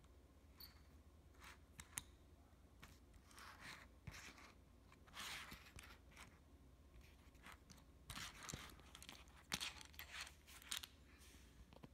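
Faint handling noise: scattered light clicks, scrapes and short rustles as fingers move a small toy Concorde model about on a mat, over a low steady hum.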